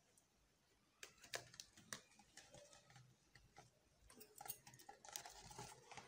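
Faint scratches and clicks of a pencil marking a plastic soda bottle, with the bottle being handled. The crackling and clicking grows denser near the end.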